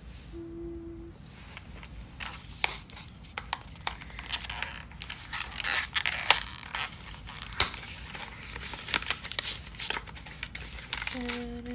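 Toy packaging being opened by hand: a dense run of crinkling, tearing and sharp clicks, busiest in the middle. A short hummed note comes near the start and a hummed tune near the end.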